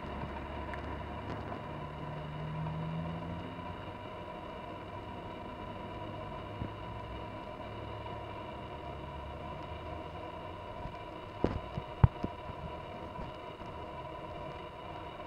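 A 2004 Acura TL's 3.2-litre V6, breathing through an RV6 aftermarket exhaust, drones low as the car pulls away into the distance. Its note rises briefly a couple of seconds in, then fades to a faint steady background. A few sharp knocks come about twelve seconds in.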